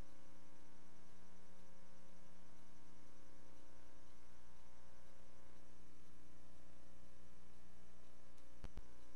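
Steady electrical hum over a hiss, with two sharp clicks close together near the end.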